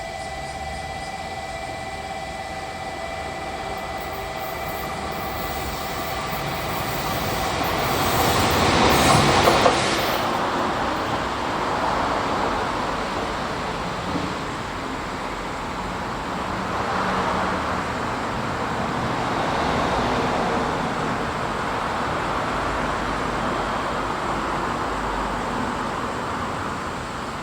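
JR Freight EF81 404 electric locomotive hauling a freight train past. It is loudest about nine seconds in as the locomotive goes by, and is followed by the steady running noise and clatter of the wagons rolling past.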